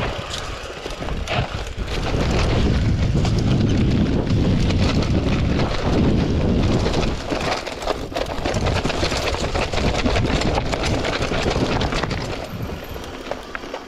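Mountain bike descending a rough dirt trail at speed: a rattle and clatter of knocks from the bike and tyres going over rocks and roots, over a steady rush of wind on the microphone.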